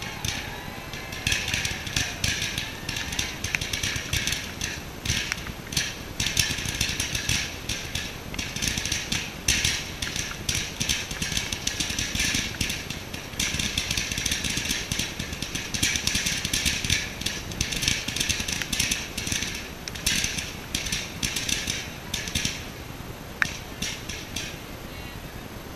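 Low-noise comet barrage firework firing: a quick, irregular run of soft pops as the comets launch, over a steady hiss, lasting about twenty seconds and then stopping, with a few stray pops after.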